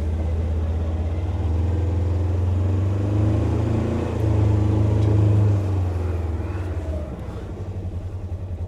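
Polaris Ranger XP 1000 side-by-side's twin-cylinder engine, heard from inside its cab, revving up through the middle and easing off about seven seconds in to a steady, pulsing idle.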